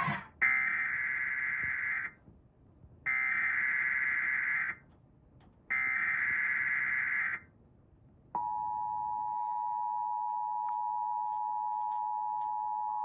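Emergency Alert System SAME header: three bursts of buzzing digital data tones, each about a second and a half long with short silent gaps between them. About eight seconds in, a single steady attention tone begins and holds. Together they announce the winter storm warning that follows.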